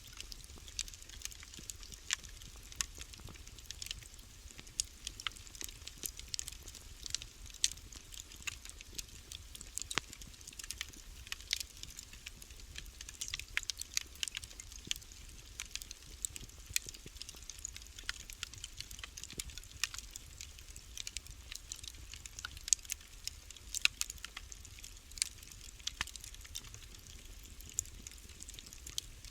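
Wood fire burning in a fireplace, crackling with frequent irregular sharp pops and snaps over a faint steady low rumble.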